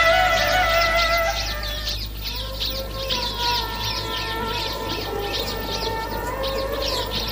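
A melody on long held notes for the first second or so, then a dense twittering of small birds, many short chirps a second, over a soft wavering held tone.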